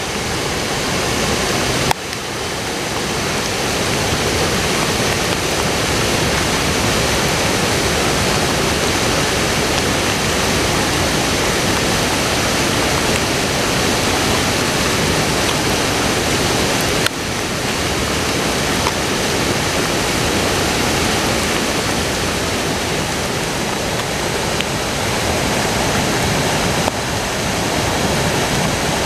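Rushing floodwater of a swollen river churning over rocks: a loud, steady, even rush of water. It breaks off and starts again about two seconds in and again around seventeen seconds, where the footage is cut.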